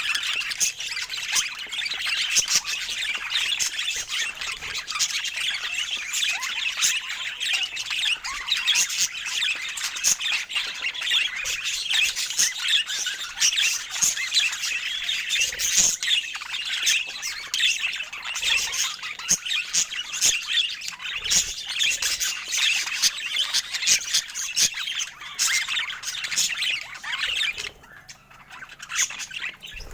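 Budgerigars chattering and squawking in a dense, continuous stream of short calls, with a brief lull near the end.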